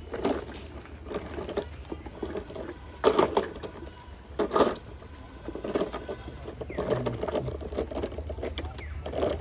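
Scattered scuffs and knocks at irregular intervals, with a few faint, high, short falling chirps and a low steady hum underneath.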